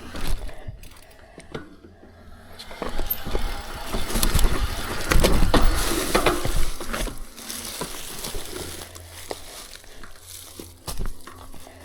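Mountain bike descending a downhill trail: tyres running over rough dirt, with the chain and frame rattling. The riding is loudest from about four to seven seconds in.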